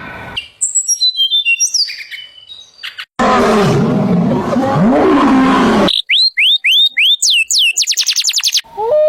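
A string of separate animal calls with abrupt cuts between them: short high bird chirps, then a loud growling roar of a large animal lasting about three seconds, then a bird's quick series of hooked whistles running into a fast trill.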